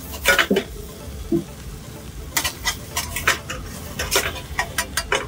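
Metal spatula scraping and knocking against a metal frying pan in irregular strokes as onions and coriander are stirred in hot oil, over a steady sizzle.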